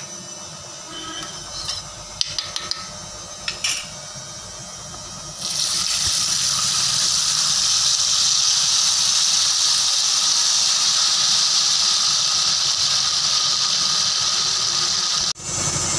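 Hot oil with fried peanuts and curry leaves in a kadai, quiet at first with a few clinks; about five seconds in, tamarind extract is poured in and the oil breaks into a loud, steady sizzle, which drops out for an instant near the end.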